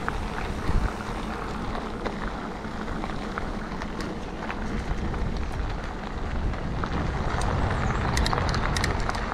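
Mountain bike tyres rolling over a gravel and dirt track, a steady crunching rumble from the ride, with scattered small ticks and rattles that come thicker near the end.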